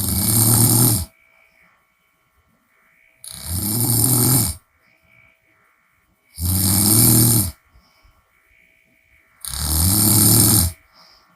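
A woman snoring with her mouth open. Four loud snores come about three seconds apart, each lasting a little over a second.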